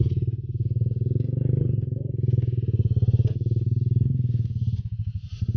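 Motorcycle engine running while riding over a rough stony road, with a few sharp knocks from the ride. Near the end the engine eases off briefly, then picks up again.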